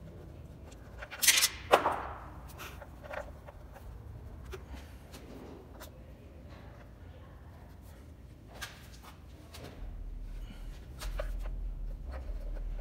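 Clinks and knocks of tools, bolts and a timing-belt cover being handled on the engine. There are two sharp knocks about a second and a half in, then light scattered ticks, and a low rumble comes in near the end.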